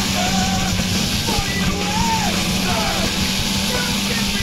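Background rock music: a dense, steady band sound with a winding melody line above it.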